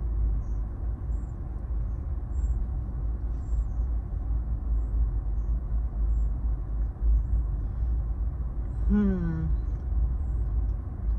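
Steady low rumble of a parked car's idling engine, heard inside the cabin. About nine seconds in, a short vocal sound falls in pitch.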